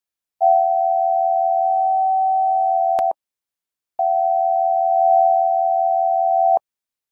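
Emergency alert attention tone: a steady tone of two close pitches sounding together, in two blasts of about two and a half seconds, each cutting off abruptly after a short gap, the first ending with a click.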